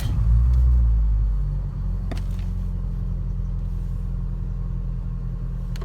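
Lada Priora engine on a cold start: it catches right away, flares up in speed for about a second and a half, then settles into a steady idle. No loud hydraulic lifter tapping comes through, which the owner takes as a sign that the diesel flush cleared the coked lifters.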